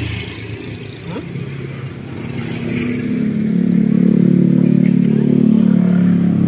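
Motor scooter passing on the road close by, its engine hum swelling from about halfway in and loudest near the end.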